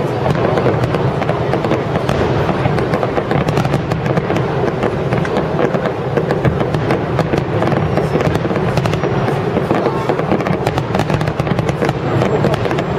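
Aerial firework shells bursting in a rapid, unbroken barrage, a dense run of bangs and crackle with no pause.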